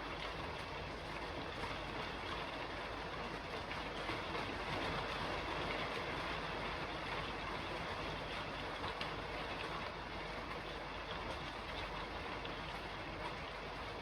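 Steady rain falling on a roof: an even hiss with faint scattered ticks of drops.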